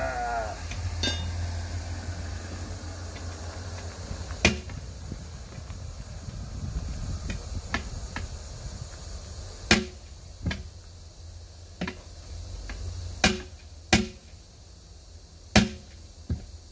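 Steel tire irons clanking against a 19.5-inch steel truck wheel as a tire bead is pried over the rim by hand: about eight sharp metallic clanks with a short ring, one about four seconds in and the rest coming closer together in the second half.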